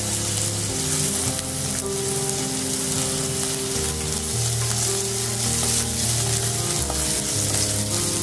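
Chopped onion sizzling steadily in hot oil in a non-stick pan, stirred with a wooden spatula.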